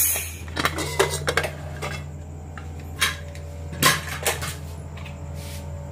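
Metal pressure cooker lid being unlocked and lifted off the pot: a short hiss at the start, then a series of metal clanks and knocks.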